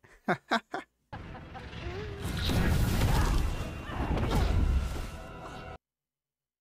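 Sound effects from a TV series' action scene: a few short clicks, then a dense, noisy rush of sound heavy in the low end, with crash- and boom-like hits. It cuts off suddenly into dead silence just before the end.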